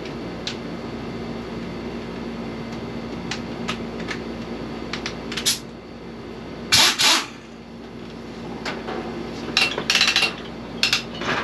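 Metal clinks and knocks of hand tools and parts while a stump grinder is bolted together: scattered single clicks, a louder clatter about seven seconds in, and a quick run of clicks near the end, over a steady low hum.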